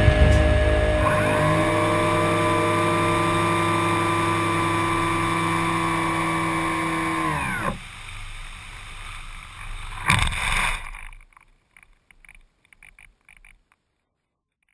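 RC flying wing's motor and propeller running steadily, then cut about eight seconds in, the pitch falling as the prop winds down. About ten seconds in there is a short loud rush as the plane touches down and slides through grass, followed by a few faint ticks.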